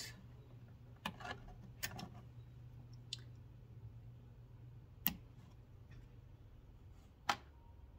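Plastic push-pin retainer clips from an engine-bay cover clicking as they are handled: about six sharp, irregularly spaced clicks over a faint low hum.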